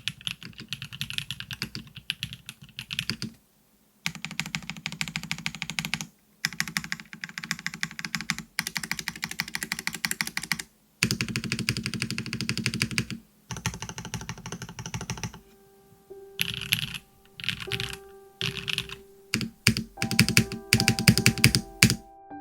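Fast typing on a mechanical keyboard with factory-lubed Kailh BCP linear switches, in runs of a few seconds separated by short pauses. In the last third, soft piano-like music comes in under slower, sparser keystrokes, and the typing stops just before the end.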